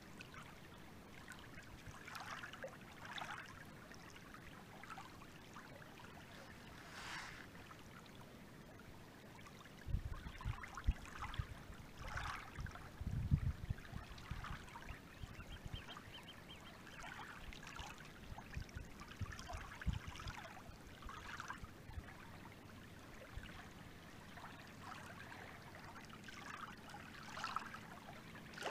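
Small lake waves lapping and splashing in irregular bursts, with a few low thumps around the middle.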